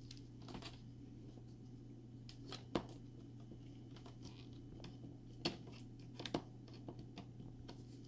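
Light clicks and taps of small plastic and metal laptop screen parts being handled and seated by hand, with a few sharper clicks about three, five and a half, and six seconds in.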